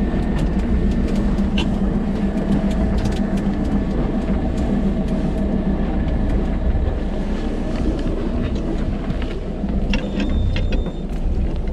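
BJ 5000 EX electric jigging machine hauling in its line with a steady motor hum and a thin whine that dies away about eight seconds in, with scattered light clicks; the machine is pulling up a hooked fish.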